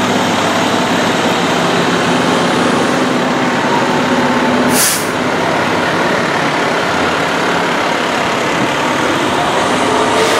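A heavy fire truck's engine running steadily as it moves past. About halfway through there is a short, sharp hiss of air brakes.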